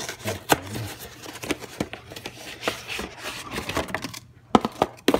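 Paperboard food packaging being pried and torn open by hand: crackling, tearing and rustling, with a few sharp snaps about four and a half seconds in.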